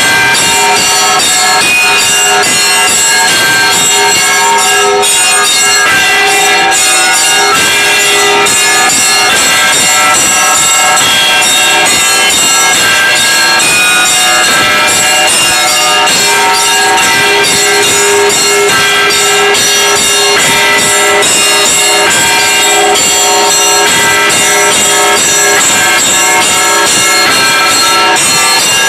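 Russian Orthodox church bells rung in a continuous peal: many bells of different pitches struck in quick succession, their tones ringing on and overlapping.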